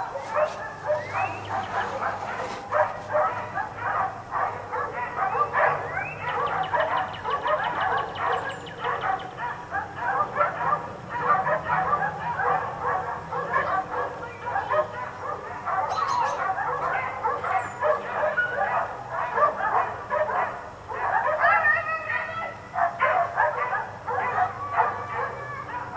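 Several dogs barking and yelping nonstop, their barks overlapping one another.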